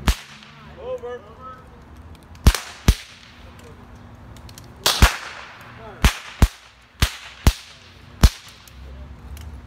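Civil War-style percussion rifle-muskets going off one at a time rather than in a volley: about ten sharp cracks at uneven intervals, some in quick pairs.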